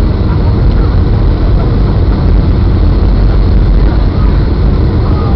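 Steady, loud cabin noise of a Boeing 757 on its landing approach, heard from a window seat over the wing: a deep, even roar of the jet engines and rushing air.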